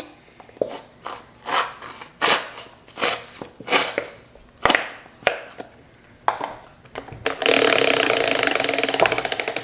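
A mystery prize wheel being spun: scattered clicks, then near the end a fast, loud run of ticking as the wheel spins past its pointer, the ticks beginning to slow as it winds down.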